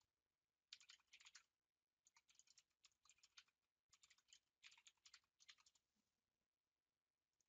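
Faint computer keyboard typing: three quick runs of keystrokes with short pauses between them, then a single key tap near the end.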